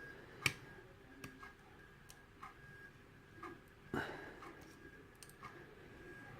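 Faint, irregular metallic clicks of a hook pick working the security pins of an Ilco cylinder lock under a tension wrench, with a sharper click about half a second in and another about four seconds in.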